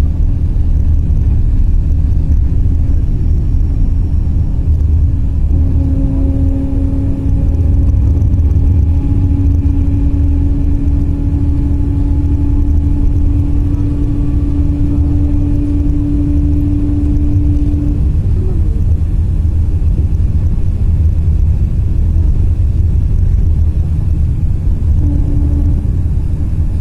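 Road noise heard from inside a moving vehicle at highway speed: a steady low rumble of engine and tyres. A steady hum comes in about five seconds in, fades out around eighteen seconds, and returns near the end.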